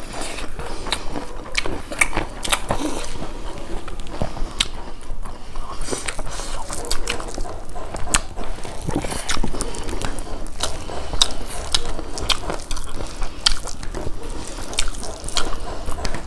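Close-miked eating: wet chewing and lip smacks as rice and curry are eaten by hand, an irregular run of small clicks with no pause.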